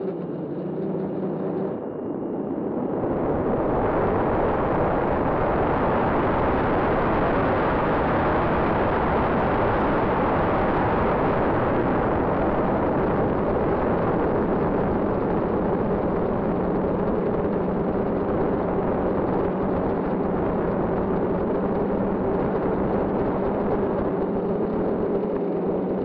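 Steady hum from the propellers of the small aircraft carrying the camera, under a loud wind rush on the microphone that swells about two seconds in and then holds.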